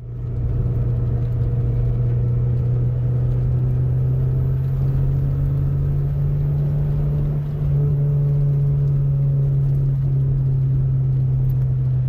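1986 Porsche 944 Turbo's turbocharged 2.5-litre four-cylinder engine and road noise heard from inside the cabin while cruising: a steady low drone that becomes slightly louder and higher about eight seconds in.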